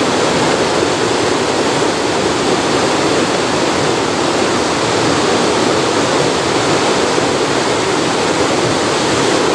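Whitewater rapids rushing over rocks: a loud, steady wash of water.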